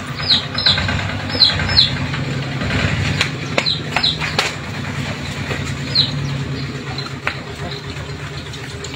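Engine idling with a steady low hum, with short high chirps from small birds, each falling in pitch. The chirps come in a cluster in the first two seconds, then again around the middle.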